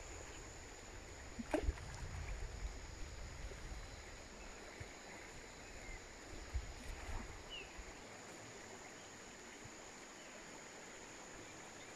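Faint riverside ambience: a steady high-pitched whine over a low rumble that dies away about eight seconds in, with a couple of soft knocks about a second and a half in.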